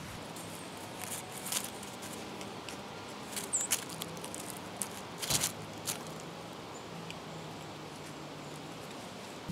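Small animals at a feeder: scattered light clicks and rustles over a steady outdoor background, with one brief high chirp about three and a half seconds in.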